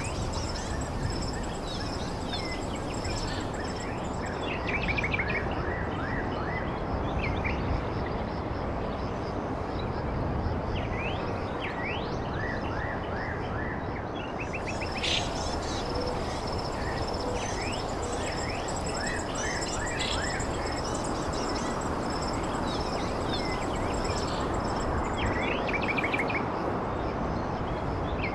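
Small birds chirping and calling in short bursts over a steady wash of outdoor background noise, with a high, even insect trill that stops for a while and comes back about halfway through.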